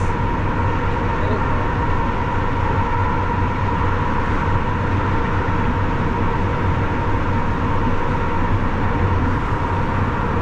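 Steady driving noise of a lorry at autobahn speed: engine drone and road noise that do not change, with a low hum and a thin constant whine.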